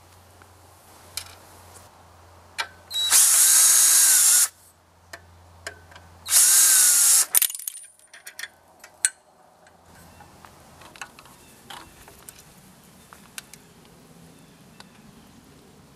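A DeWalt cordless drill/driver runs twice in short bursts, about a second and a half and then about a second, to take out the bolts on the antenna's mast support. Each time the motor whirs up to speed and winds down. Light metallic clicks and knocks from handling the bolts and bracket come between and after the bursts.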